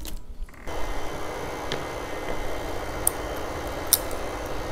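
Tabletop nail dust collector fan switching on less than a second in, then running steadily at its lowest setting with an even hiss. A few sharp clicks sound over it, the loudest a little before the end.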